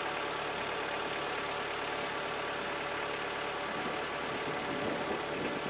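A motor vehicle's engine idling steadily, a low even hum with a little hiss.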